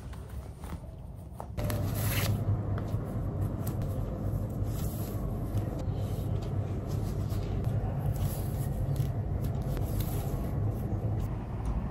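Fabric rustling and rubbing as a pleated top is handled and pulled on, over a steady low hum that comes in suddenly about a second and a half in.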